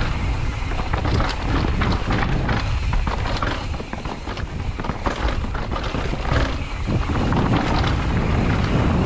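Mountain bike riding down a dirt singletrack: wind buffeting the microphone with a steady low rumble, tyres rolling over dirt and leaves, and frequent irregular rattles and clacks from the bike over roots and stones.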